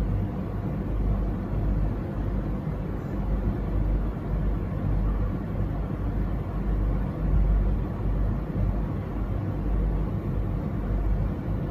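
Steady low rumble and hum with no distinct events.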